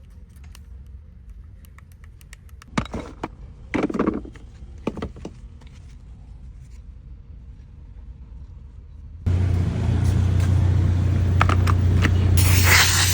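A few handling clicks and knocks, then about nine seconds in an electric power tool motor switches on and runs steadily with a low hum and hiss, turning brighter and louder in the highs near the end.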